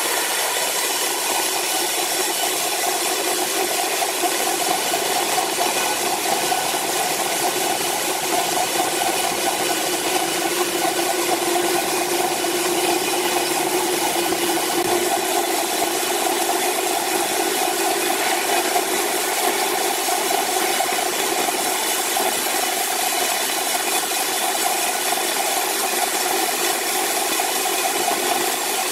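Horizontal band sawmill cutting lengthwise through a large timber block: a steady mechanical drone of several even tones over a continuous hiss of blade in wood.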